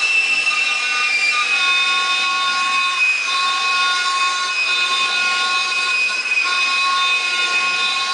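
Propane torch burning with a steady hiss and a high singing whistle made of several pure tones, its pitch wavering slightly.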